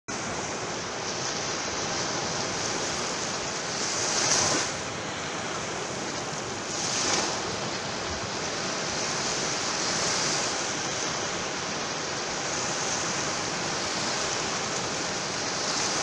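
Small sea waves breaking and washing up a sandy shore: a steady rush of surf that swells louder about four and seven seconds in.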